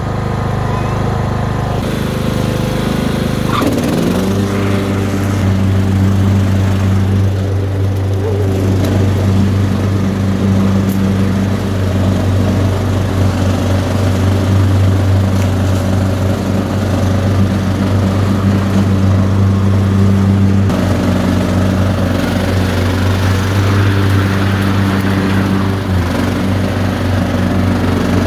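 Cub Cadet riding lawn mower engine running steadily while mowing. Its pitch slides briefly about four seconds in, then holds even.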